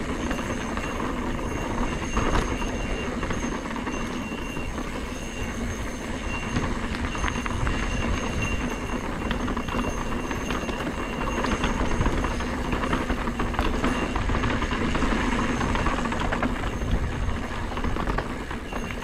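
Mountain bike rolling steadily down a dirt singletrack: tyres crunching over dirt and small rocks, and the bike's chain and frame rattling, with wind buffeting the helmet-camera microphone. A faint steady high whine runs through it.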